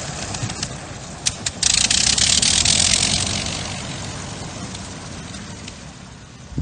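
80 hp Le Rhône rotary engine of a Fokker Dr.I triplane running as the plane taxis, with a rushing noise swelling briefly about two seconds in. The sound then fades steadily as the aircraft moves away.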